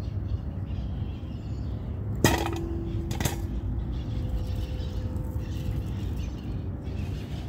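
Maxixe fruits (West Indian gherkins) dropped into a stainless steel bowl: a sharp metallic clink with a short ring about two seconds in, then a second, lighter clink about a second later.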